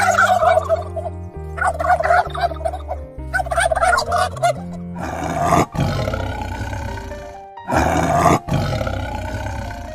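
Turkey gobbling three times in quick rattling calls, then a tiger roaring in several long, rough bouts from about five seconds in, over soft background music.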